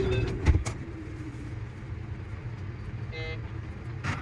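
Electric train running, a steady low rumble with rail clicks, one loud knock about half a second in, and a brief horn-like toot about three seconds in.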